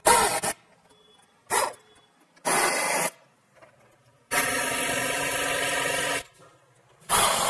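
Power ratchet run in bursts, first short ones, then two longer runs of about two seconds, as it tightens the bolts that fasten a gear operator and adapter plate to a butterfly valve's mounting flange.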